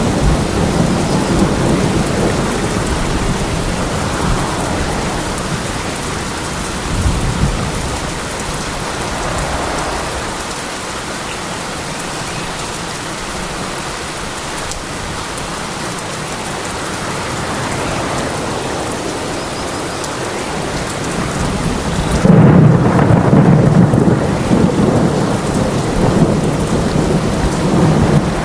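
Steady rain with rolling thunder. The low rumbling eases off in the middle, then a loud, long thunder rumble starts about three quarters of the way through.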